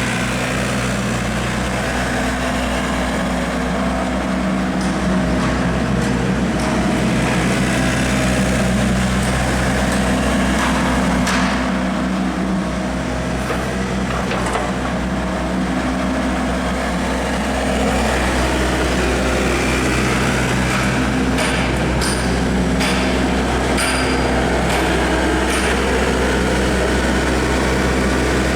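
Hyundai R55 mini excavator's diesel engine running steadily, with a scatter of sharp knocks from the machine at work, a couple near the middle and a cluster in the second half.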